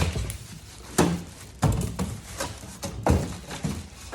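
Unpacking and handling noises: a run of irregular knocks and rustles, roughly one every half second to a second, as packaging and parts are moved about.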